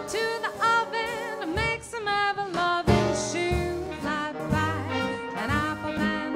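Live swing big band playing: the horn section plays short, punchy phrases with upward scoops over drums, bass and piano.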